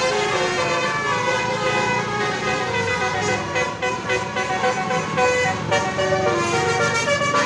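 Telolet bus horn, a multi-tone musical horn, playing a fast run of stepped notes over and over.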